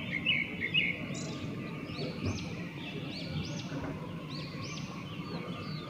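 A small bird calling: a few quick twitters at the start, then a run of repeated high, arched chirps about every half second from about two seconds in, over faint outdoor background noise.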